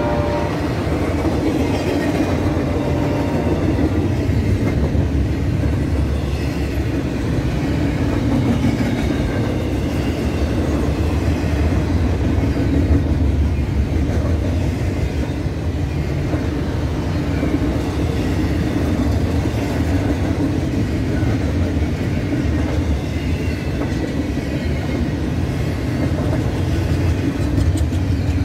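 Norfolk Southern double-stack intermodal train's loaded well cars rolling past steadily, steel wheels running on the rails.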